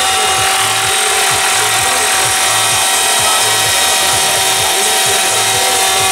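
Gasoline engine of a large AirStar Mongoose RC helicopter running steadily at hover: a constant high engine whine with a low pulsing from the rotor underneath.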